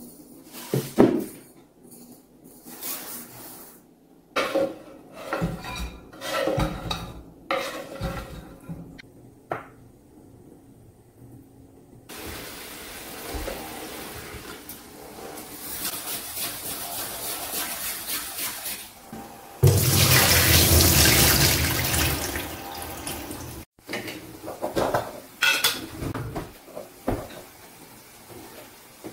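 Water running from a kitchen tap into the sink while rice and bulgur are washed, the flow much stronger for about four seconds in the second half before stopping abruptly. Before it come scattered knocks and clatter of a metal bowl and grains being handled, and after it light knocks of pans and utensils.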